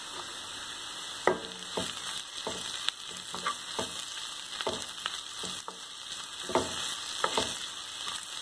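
Onions and ginger-garlic paste sizzling in hot oil in a kadai, with a spoon scraping and knocking against the pan every half second to second as it is stirred.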